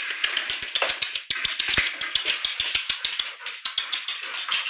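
Dogs' claws clicking and scrabbling on a wooden floor: rapid, irregular taps, several a second, over a steady hiss.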